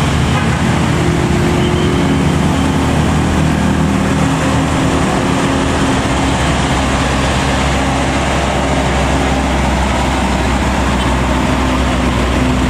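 Heavy vehicles, buses and trucks, idling and crawling in stop-and-go traffic: a steady low engine hum over road noise.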